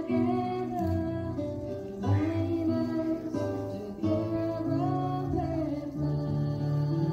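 Background music: a plucked acoustic guitar with a singing voice over it.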